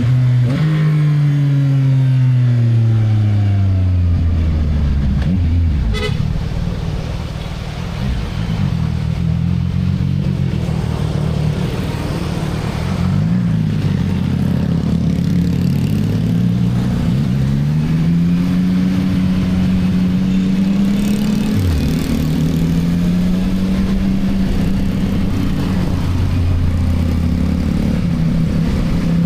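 Engine of a CFMoto 675NK, an inline three-cylinder on its stock exhaust, under way on the motorcycle. The revs fall steadily over the first few seconds as it slows, then climb again in steps with gear changes as it accelerates, settling at a steady cruise near the end.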